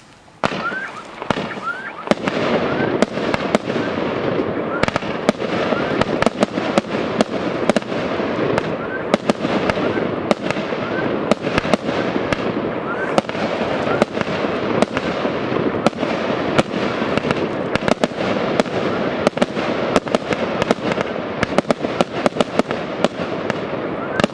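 A 108-shot, 1-inch firework cake goes off about half a second in and then fires rapid-fire without pause. It gives a dense stream of sharp launch bangs over continuous crackling, with short rising whistles among the shots.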